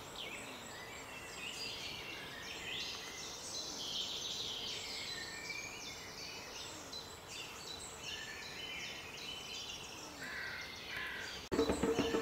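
Many birds chirping and calling at once, a dense chorus of short high notes. Near the end it cuts off abruptly and music starts.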